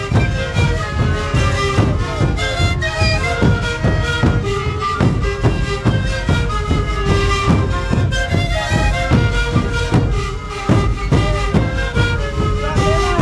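Sikuri band playing: many siku panpipes sounding a breathy melody in interlocking pairs over a steady beat of large bombo bass drums, about two strokes a second.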